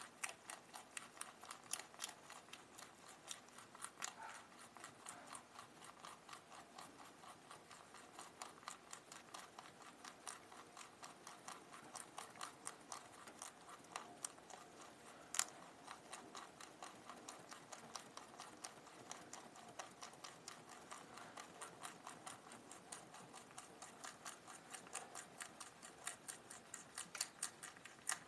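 Domestic rabbit chewing a leafy plant stem: a quick, steady run of crisp crunching clicks, with one louder crunch about halfway through.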